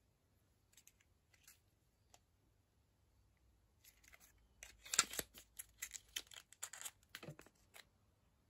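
Mascara tube and its cardboard carton being handled: a few faint clicks, then from about four seconds in a quick run of sharp clicks and rustles that stops shortly before the end.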